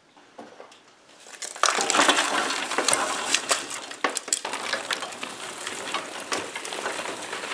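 Lumps of kiln charcoal, still wet from quenching, tipped from a bucket into the grinder's steel hopper. They clatter and clink against the steel plates and grid and against each other. The pour starts about a second and a half in, is loudest at first, and keeps rattling on.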